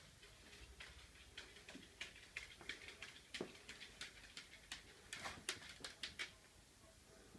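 Faint, irregular clicks and taps of two Ragdoll kittens' claws and paws on a hardwood floor as they scuffle, with a quick run of clicks about five to six seconds in.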